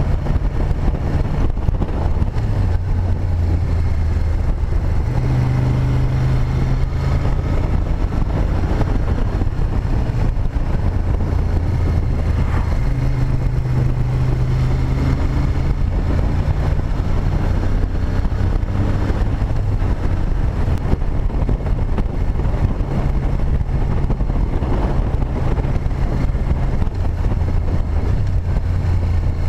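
Moto Guzzi Griso 8V SE's air-cooled V-twin engine running under way at road speed, heard from on the bike, with wind noise over it. The engine note steps up and down a few times as the throttle changes.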